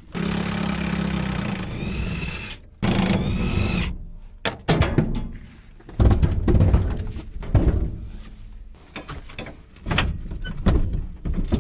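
Cordless impact wrench running in two bursts on the bench-seat mounting bolts, its whine rising in pitch near the end of each burst. It is followed by a series of irregular metal clunks and knocks as the loosened seat and its hardware are worked around.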